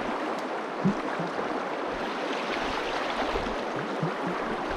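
Shallow, fast-flowing river water running over stones, a steady rush, with one brief louder sound about a second in.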